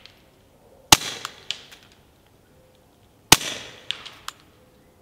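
Two suppressed shots from a Beretta 21A Bobcat .22 LR pistol firing subsonic rounds, about a second in and again more than two seconds later. Each sharp crack has a short echoing tail and a few faint ticks after it.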